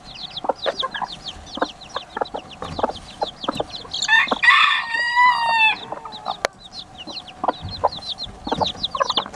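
Baby chicks peeping constantly in quick, short falling chirps, with scattered clucks from bantam hens. About four seconds in, an adult chicken gives a loud, drawn-out crow of about two seconds.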